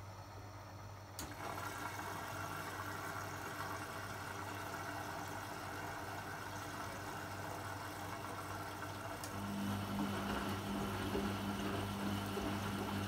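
Beko BKY 2317 B washing machine in its wash phase: a click about a second in, then the drum motor running steadily as the drum turns the load through the wash water. Near the end a second, higher hum joins and it gets a little louder.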